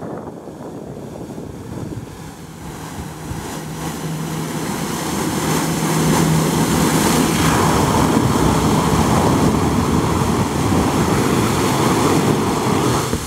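Flyboard running: a jet ski's engine pumping water up the hose, with a steady low hum and the rush of the water jets blasting from the board's nozzles onto the water. It grows louder over the first several seconds as the rider comes closer, then holds steady.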